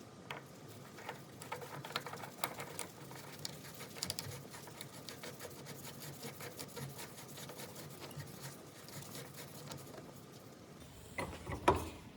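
Light, irregular clicks and taps of small metal tool parts being handled and fitted, with a louder clatter near the end.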